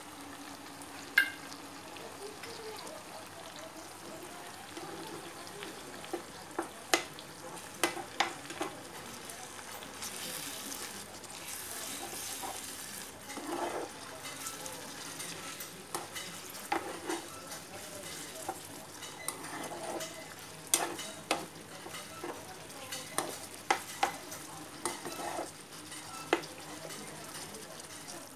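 Chicken masala gravy sizzling in a nonstick frying pan while a spatula stirs it, with many sharp taps and scrapes of the spatula against the pan.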